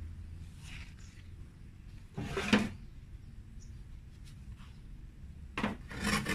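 Rustling and scraping of potting soil and a plastic plant pot being handled by gloved hands, in short bursts: one about two seconds in and two more near the end as the pot is picked up.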